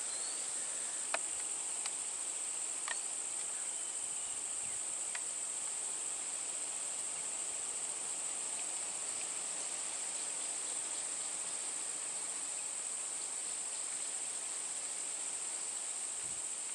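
Insects droning steadily in the surrounding vegetation, a constant high-pitched buzz, with a few faint sharp clicks in the first five seconds.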